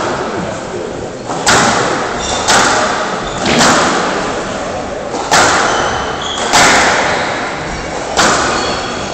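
Squash rally: the ball is hit by the rackets and smacks off the court walls, about six sharp hits roughly a second or more apart, each ringing on in the hall's echo.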